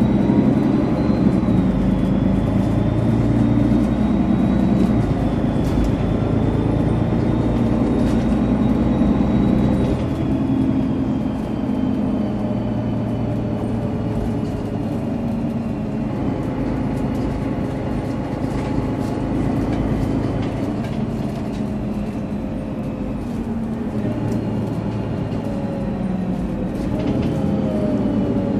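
Mercedes-Benz Citaro G (O530G) articulated bus's diesel engine running under way, with a thin, high turbocharger whistle above it. The engine is loudest for the first ten seconds or so, then eases off and the whistle slowly falls in pitch.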